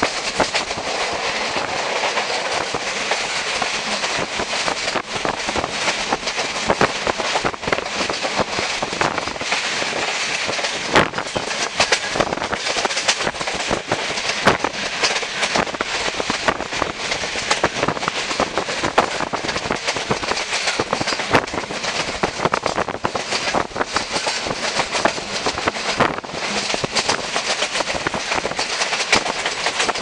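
Train running at speed, heard from inside a carriage: a steady rush of running noise broken by frequent short clicks and clatter of the wheels over the rails.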